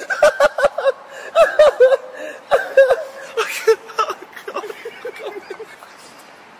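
Two men laughing hard, in quick repeated bursts that fade out about five and a half seconds in.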